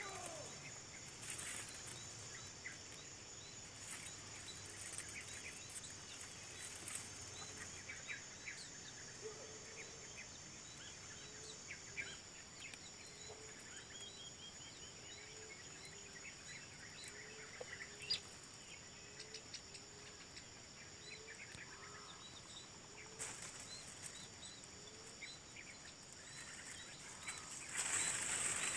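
Faint forest ambience: a steady high-pitched insect drone with scattered bird chirps, and a low call repeated about once a second through the middle. A louder rustling noise comes in near the end.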